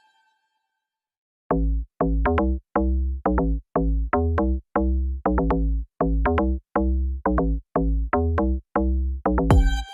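Electronic background music with a steady drum-machine beat and deep bass notes, starting after about a second and a half of silence.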